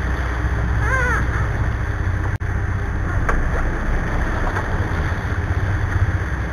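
Sportfishing boat's engines running in a steady low rumble, with water churning and splashing along the hull. A brief high-pitched call sounds about a second in.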